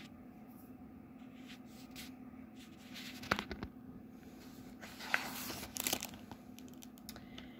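A hardcover picture book's paper page being turned: a few soft handling ticks, then a brief papery rustle about five seconds in, over a faint steady low hum.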